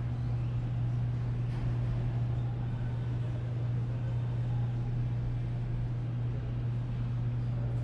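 A steady low hum under an even wash of background noise, unchanging throughout.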